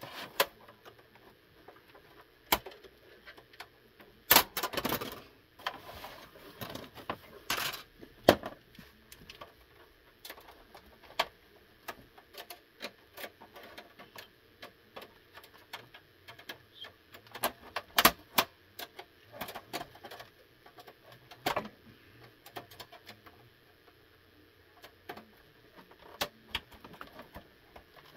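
Plastic clicks, snaps and taps from an Xbox 360 S console case as its clips and top vent cover are pried apart with a screwdriver. The clicks come irregularly, with louder bursts about four and eight seconds in and again around eighteen seconds.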